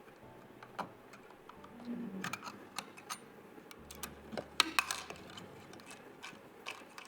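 Irregular light clicks and taps of PC components being handled and fitted during assembly, with a sharper cluster of clicks a little past the middle.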